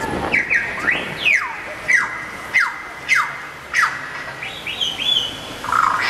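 Bird calls played through portable loudspeakers: a string of sharp whistled chirps, mostly sweeping down in pitch and some sweeping up, about one or two a second.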